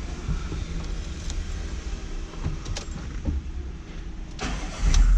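Car engine running with a low rumble and scattered clicks. Near the end a much louder deep rumble sets in suddenly.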